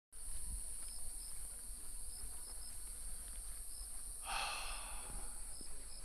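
Steady high-pitched insect chorus in trees, with a few short, high chirps and a low rumble underneath. A brief swell of rushing noise comes about four seconds in.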